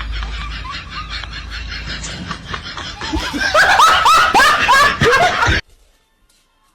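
A person laughing in a rapid run of short laughs. The laughs grow louder about three seconds in, then cut off abruptly.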